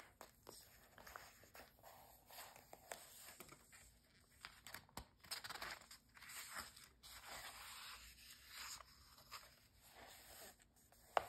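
Faint rustling and sliding of glossy magazine paper as a page is turned, with light clicks of long acrylic nails against the pages and one sharper tap near the end.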